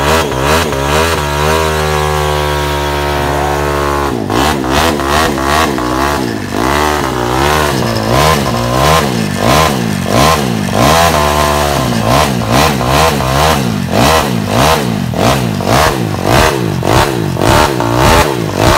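Small scooter engine held at high revs, then revved up and down over and over in quick blips while its rear tyre spins in a burnout.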